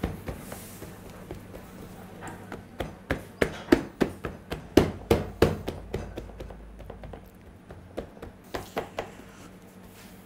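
Hands patting and pressing bread dough out into a round fluted metal baking tin on a steel worktable: a run of quick, irregular taps, thickest in the middle, with a few more near the end.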